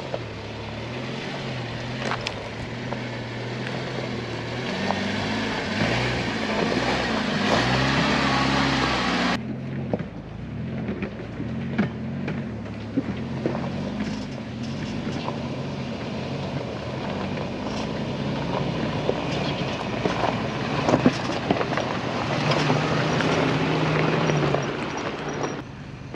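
Off-road vehicles crawling over a loose, rocky trail: engines at low revs, rising and falling with the throttle, over tyres crunching and popping on gravel and rock. First comes the 1995 Jeep Wrangler, then after a sudden cut about nine seconds in, the 2004 Lexus GX470's V8 on the same climb.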